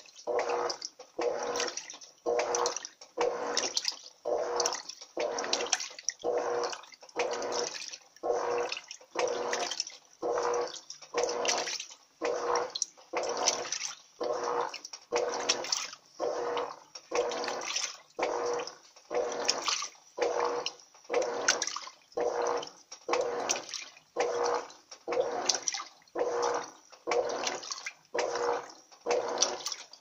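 Electrolux Turbo Economia 12 kg (LTE 12) top-loading washing machine agitating a load of blankets in deep water: rhythmic swishes of water and fabric, about one a second, as the agitator reverses back and forth, over a faint steady hum.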